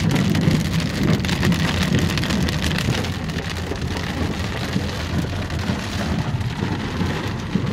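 Heavy rain pattering on a car's windshield and body, heard from inside the moving car as a dense, even patter of drops, over the car's steady low road noise on the wet pavement.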